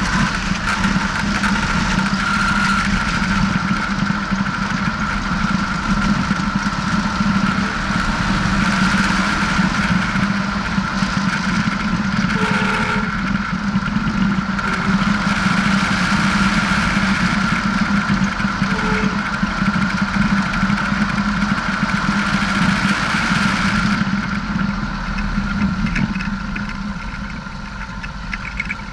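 Single-engine light aircraft (Piper PA-18-150 Super Cub, 150 hp Lycoming four-cylinder) running steadily at low taxi power, with its propeller. The engine note and rushing noise ease off near the end as power comes back.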